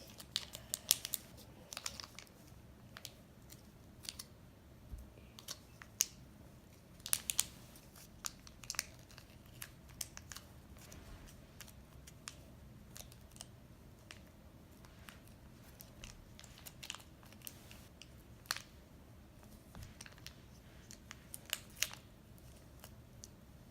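Faint, scattered small clicks and crinkles of hands working toy slime as unicorn magic is mixed into it.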